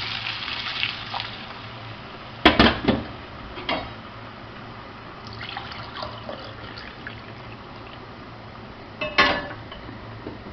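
Broth poured into the paella pan of rice, hissing at first and then simmering quietly. There are sharp knocks from a utensil or pot, the loudest about two and a half seconds in and another near the end.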